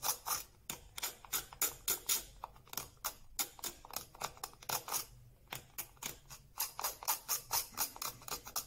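Rapid, short scraping strokes of a small pointed hand tool working old hardened glue off a small wooden part, about three or four strokes a second with a couple of brief pauses.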